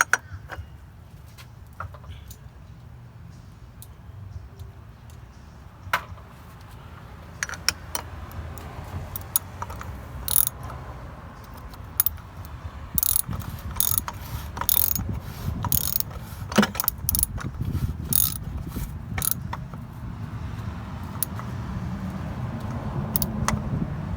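Ratchet wrench clicking in short irregular spells as a bolt is run in and tightened, with sharp metallic clicks and clinks, most of them in the middle of the stretch.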